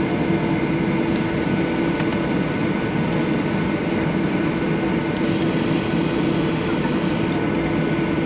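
Steady cabin drone inside a Boeing 737-800 on the ground before takeoff, its CFM56 engines at idle thrust, with a steady low hum tone over the airflow noise.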